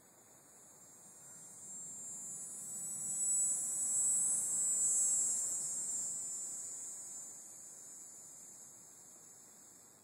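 Dog-day cicada (Tibicen canicularis) calling: a high-pitched buzz that swells over the first few seconds, is loudest about halfway through, then fades away toward the end.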